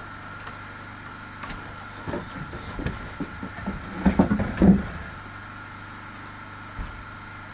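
Wooden boards knocking and bumping together as they are handled, a cluster of irregular knocks in the middle, loudest toward its end, over a steady background hum.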